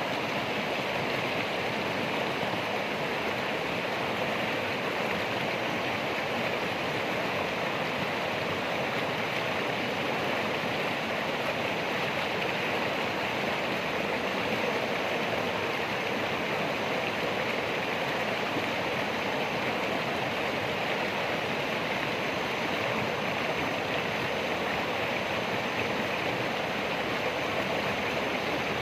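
Running water, a steady, unbroken rush with no swell or break.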